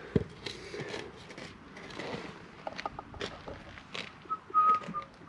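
Light clicks and knocks as a plastic drain bend fitting is handled and offered up against an old clay pipe in loose soil. Near the end, a person whistles a few short held notes, louder than the handling.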